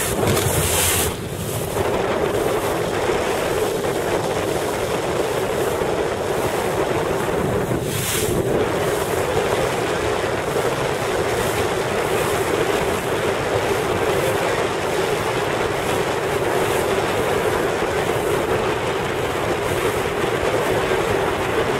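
Steady rush of wind and water as a boat moves across choppy lake water, with a constant low hum underneath. Wind buffets the microphone briefly about a second in and again around eight seconds.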